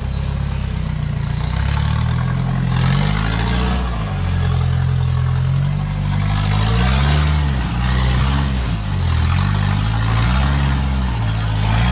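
Modified Toyota Hilux 4x4's engine working under load as it crawls up a steep rock ledge, the revs rising and falling about once a second through the second half.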